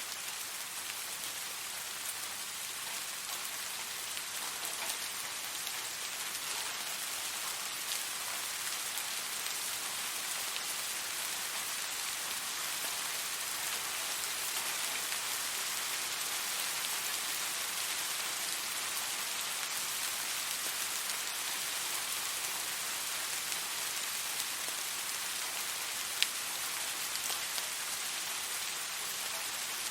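Steady rain falling on a surface, an even hiss with scattered individual drop ticks and one sharper drop near the end.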